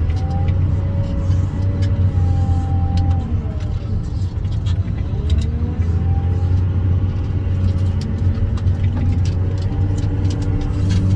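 Wheel loader's diesel engine running steadily, heard from inside the cab, with a whine that rises and falls in pitch several times as the loader works the bucket.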